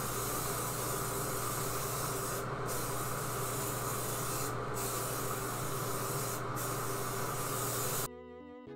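Aerosol can of Homax tub-and-tile refinishing coating spraying with a steady hiss, briefly thinning about every two seconds as the spray is swept along. A steady low hum from the bathroom vent fan runs underneath. The hiss cuts off abruptly near the end, where piano music comes in.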